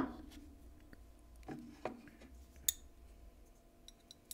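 Small metal clicks and clinks of titanium folding-knife parts being handled and fitted together: a sharp clink with a short ring at the start, two more knocks with a brief ring about a second and a half in, a sharp high click near the middle, and faint ticks near the end.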